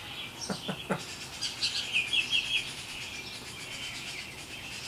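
Songbirds chirping around the porch, with a quick run of about four falling notes about two seconds in over a steady background of birdsong. A brief low chuckle comes just after the start.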